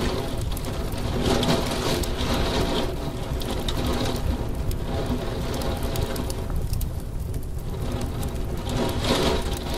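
Heavy rain slapping against window glass: a dense patter of drops over a steady rush, with a steady low hum beneath.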